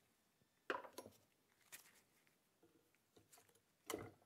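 A few short metallic clicks and taps from a hand tool working the boot clamp on a driveshaft CV joint, the two sharpest a little under a second in and near the end.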